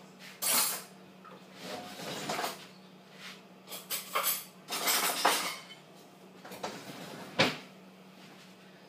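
Kitchen handling sounds: cutlery and kitchenware clattering and rustling in a scatter of short bursts, with one sharp knock near the end.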